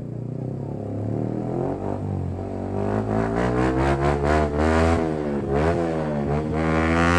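Yamaha R15M's single-cylinder engine through a loud aftermarket full exhaust, running low at first, then revved up and down repeatedly from about three seconds in, with sharp crackles between the revs.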